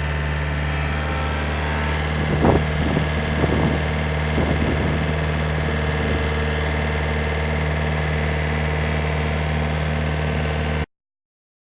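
Komatsu SK714 skid steer's 4D88E four-cylinder diesel engine running steadily at idle, with a few short clanks about two to five seconds in. The sound cuts off suddenly near the end.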